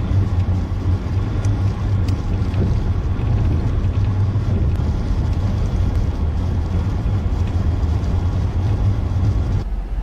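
Steady low engine rumble from a motor vehicle, holding one pitch throughout and cutting off abruptly near the end.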